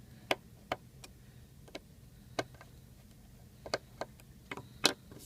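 Small metal tools clicking and tapping against an iPhone 4's internal screws and frame as the screws are unscrewed and lifted out, about nine short sharp clicks at uneven spacing, the loudest near the end.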